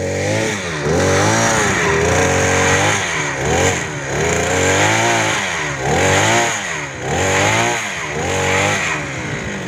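Petrol-powered earth auger engine revving up and down over and over as it drills holes in the ground.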